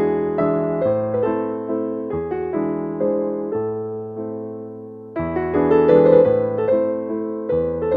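Slow, calm piano music: sustained chords over a bass line, a new louder chord struck about five seconds in.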